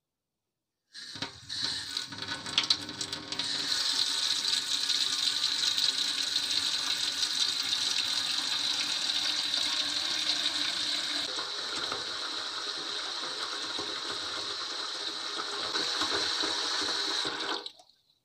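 Running water in a steady rush, a simulated sound effect imitating hair being rinsed. It starts about a second in, uneven and splashy for the first couple of seconds, and cuts off suddenly near the end.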